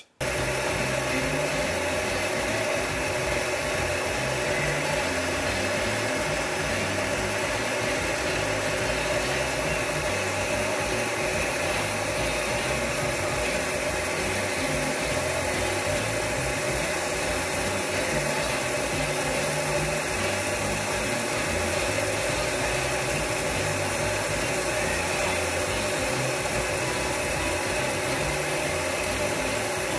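Electric heat gun running steadily, standing nozzle-up: its fan motor hums and air blows through the nozzle with an even, unchanging noise.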